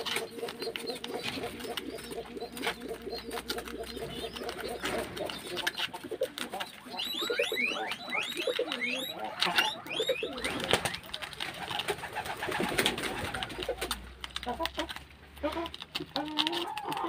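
Several guinea pigs chewing and tearing at a green leaf: rapid crisp crunching and rustling. Cooing calls sound through it, and a run of short high chirps comes about halfway through.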